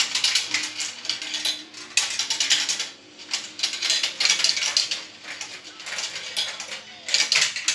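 Marbles rolling and clattering down the plastic tracks of a tall marble run: a dense, irregular rattle of clicks that swells in several louder spells.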